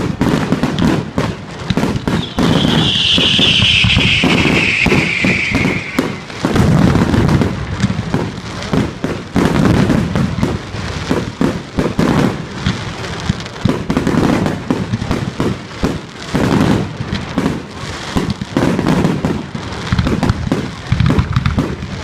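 Firework display: a continuous barrage of bangs and crackling bursts. Between about two and six seconds in, a whistle slides down in pitch over it.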